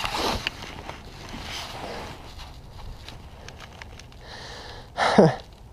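Outdoor background noise on the water with a few light knocks. About five seconds in, a person makes a short, loud vocal sound that falls steeply in pitch, just after a hiss of breath.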